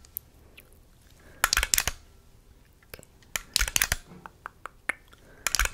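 Close-miked plastic clicking from a small handheld camera being triggered: scattered single clicks and three quick flurries of clicks, about a second and a half in, about three and a half seconds in, and near the end.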